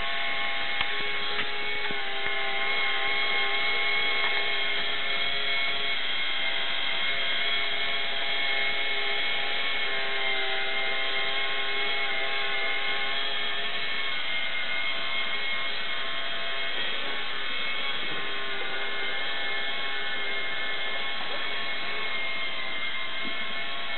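K'NEX electric motor and plastic gears turning the Dumbo ride model's arms: a steady motor whine made of several held tones that drift slightly in pitch.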